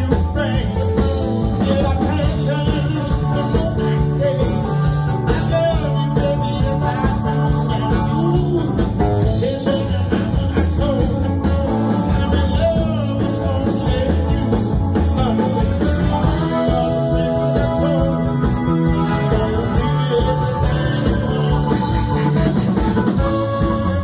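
Live blues band playing: a man singing over saxophone, electric bass and drums with a steady beat, with one long held note about two-thirds of the way in.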